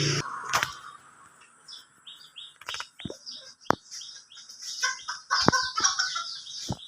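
Birds chirping and calling, with several sharp clicks in between; a steady low hum cuts off just as the sound begins.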